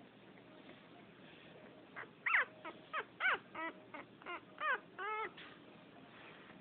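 French poodle puppy whimpering: a run of about ten short, high-pitched cries that each slide down in pitch, starting about two seconds in and lasting some three seconds.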